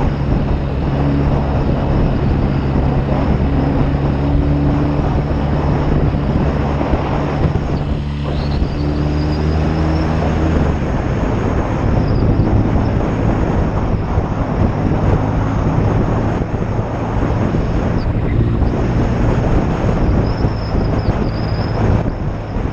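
1972 BSA Lightning 650's parallel-twin engine running on the road, with wind rushing over the microphone. The engine note dips briefly about 8 seconds in and changes pitch, then sits lower under the wind noise from about 11 seconds on.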